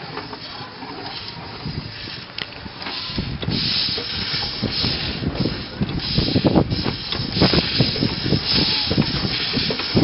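Steam hissing from a 1906 Russell steam engine and its boiler. The hiss grows louder about three seconds in and turns into uneven, sputtering pulses.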